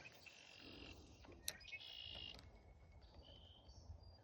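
Near silence: faint background with a few short, high-pitched animal calls, and one soft click about one and a half seconds in.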